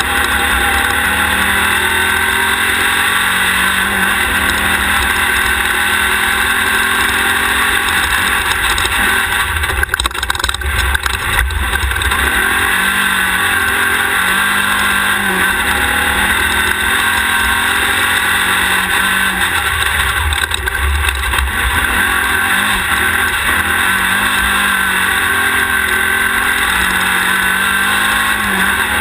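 Class 1600 off-road race buggy's air-cooled VW engine running hard under load, recorded on board, its pitch rising and falling with throttle and shifts over steady wind and terrain noise. Brief clusters of jolts and knocks from rough ground about ten seconds in and again around twenty seconds.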